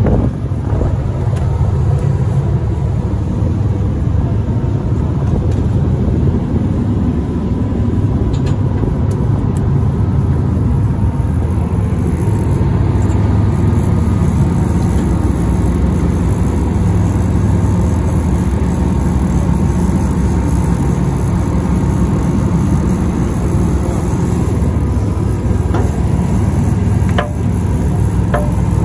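Fishing boat's engines running steadily under way, a loud, even low drone.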